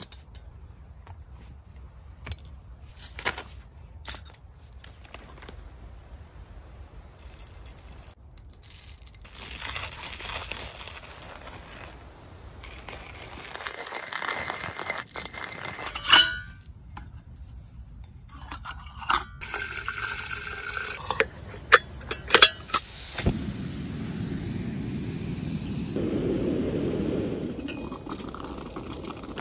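Camp coffee being made: metal clinks as an enamel percolator and gas canister stove are set out, a hand coffee grinder grinding beans for several seconds, a few sharp clicks, then from about three-quarters of the way through the steady hiss of the lit gas burner.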